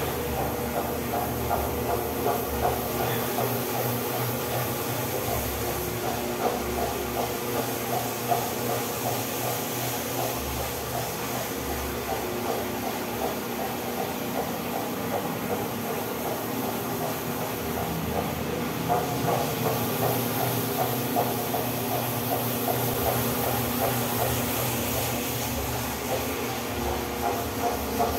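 Masisa DP1334 single-disc floor polisher running steadily with a hum, its 0.75 HP motor turning a fiber pad across wet, soapy floor tiles.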